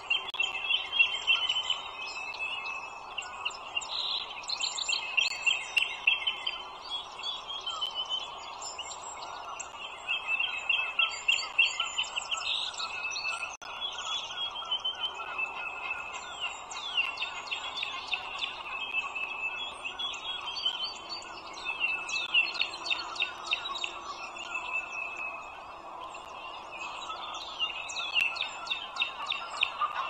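Eaglets in the nest chirping in repeated runs of rapid, high-pitched peeps, begging for food, over a steady background hiss.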